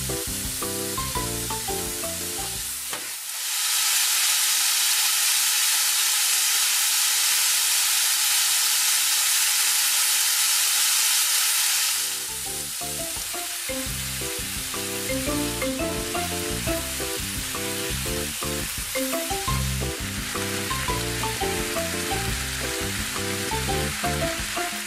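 Thin-sliced pork frying in a frying pan: a steady, loud sizzle that comes up about three seconds in and drops away about twelve seconds in. Background music plays before and after it.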